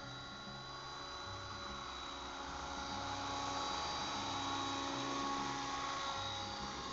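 Mini Titan electric RC helicopter in an Agusta 109 scale body hovering low, its motor and gears giving a steady high whine over the rotor blades' whoosh. It grows louder from about three seconds in.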